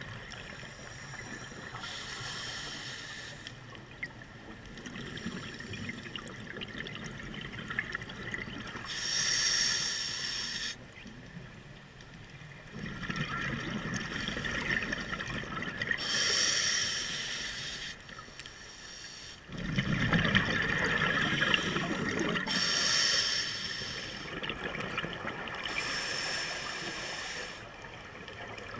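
Scuba diver breathing through a regulator underwater: several slow breath cycles, each a short hiss on the inhale followed by a longer bubbling of exhaled air.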